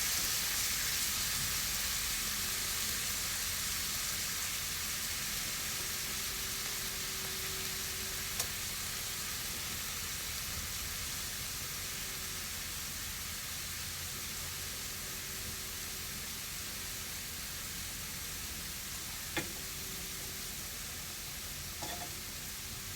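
Shrimp frying in olive oil in a pan: a steady sizzling hiss that slowly gets quieter, with a few faint clicks.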